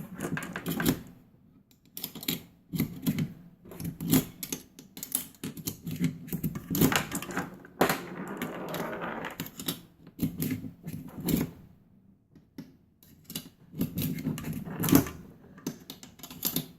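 9mm cartridges being pushed one by one into a pistol magazine with a Maglula pistol loader: irregular metallic clicks and clacks, with a stretch of rattling cartridges about eight seconds in.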